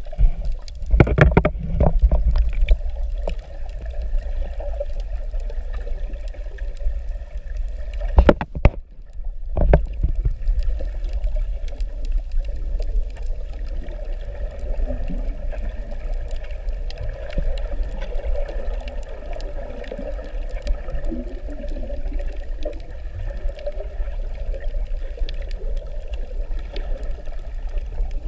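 Muffled underwater water noise picked up by a submerged camera, with a steady low rumble. Several sharp knocks in the first few seconds and again about eight to ten seconds in.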